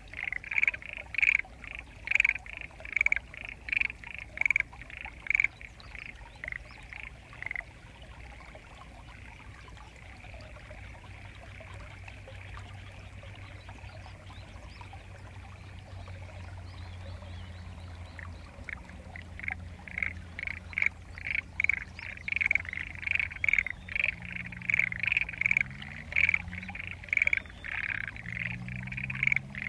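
A chorus of frogs in flooded rice paddies, which the recordist takes to be mostly black-spotted pond frogs, calling in rapid pulses. The frogs fall silent about eight seconds in as a low hum from an approaching Kambara Railway electric train builds, then start calling again about twenty seconds in, and near the end a low rising whine from the train is heard under the chorus.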